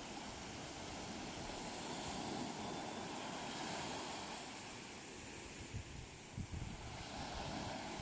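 Small waves breaking and washing up a sandy beach in a steady surf wash, with a few brief gusts of wind buffeting the phone microphone about six seconds in.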